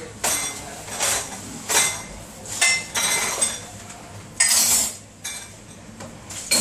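Crockery clinking and clattering as cups and dishes are set into plastic dishwasher racks, with a sharp clink or short clatter about once a second.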